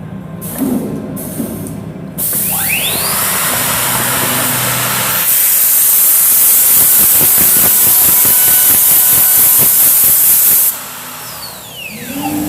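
Comec MD TOP CNC woodworking machine (milling, drilling and mortising) at work: a motor whine rises in pitch about two and a half seconds in, a loud steady rushing hiss runs until about eleven seconds, then drops away as a whine falls in pitch and settles into a steady tone near the end.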